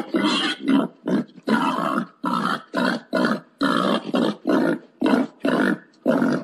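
Wild boar grunting in a fast series of short, rough grunts, about two or three a second: a boar's mating call.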